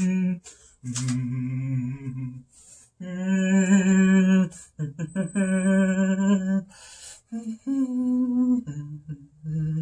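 A person humming a slow tune in long held notes, some with a wavering pitch, separated by short pauses.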